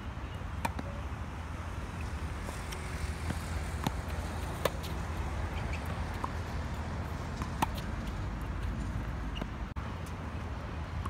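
Tennis ball being hit back and forth in a baseline rally on a hard court: sharp pops of racquet strikes and ball bounces every second or few, some louder (near end) and some fainter (far end), over a steady low rumble.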